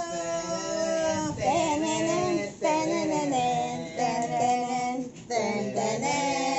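Several voices, high female and child-like, singing together in long held notes, with short breaks between lines about two and a half and five seconds in.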